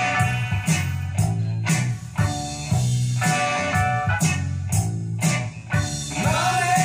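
Recorded music with a steady beat, strong bass and guitar, played over Sonus Faber Lumina III floorstanding speakers driven by a Roksan K3 integrated amplifier and heard in the listening room. A bending note comes in near the end.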